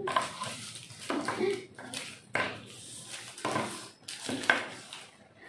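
Small wrapped KitKat chocolate bars being slid around and set down on a wooden tabletop by hand: irregular soft taps and crinkles of the plastic wrappers.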